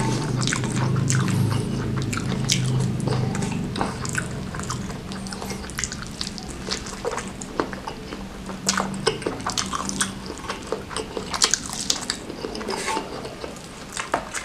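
Close-miked eating: wet chewing with many sharp mouth clicks and smacks, over a low steady hum that fades out about ten seconds in.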